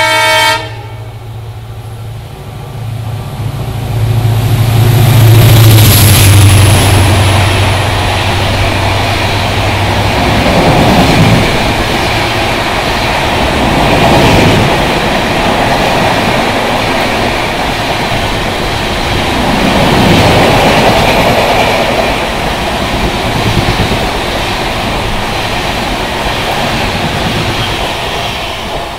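A WDP4D diesel locomotive sounds a short horn blast, then its EMD two-stroke engine rumbles loudly past at speed. A long train of passenger coaches follows, its wheels clattering and rushing over the rails with repeated swells as the bogies pass, fading near the end.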